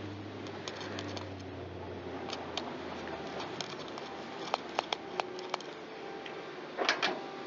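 Scattered light clicks and taps of a small-engine carburetor and its small parts being handled and taken apart by hand, with a short scrape near the end.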